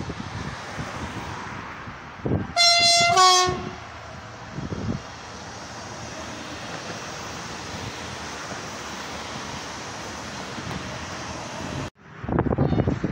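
Electric regional passenger train sounding its two-tone horn, a higher note then a lower one, about two and a half seconds in, then passing close by with a steady rushing noise of wheels on rail. The sound cuts off abruptly near the end.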